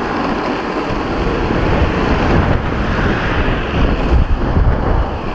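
Wind buffeting the microphone of a camera riding on a moving longboard, over the steady low rumble of the board's wheels rolling on asphalt.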